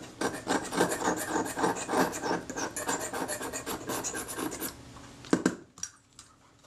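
The back edge of a scalpel blade scraping dried adhesive off a Kodak Retina IIIS metal body casting in quick short strokes, several a second. The scraping stops a little over two-thirds of the way through, followed by a couple of light knocks.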